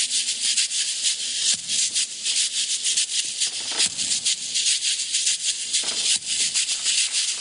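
Washboard scraped in a fast, steady rhythm of short strokes, played alone as a percussion break.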